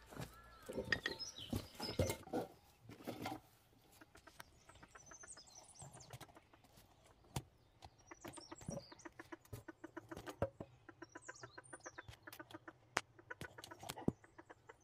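Chickens clucking in quick runs of short pulses, with small birds chirping faintly now and then.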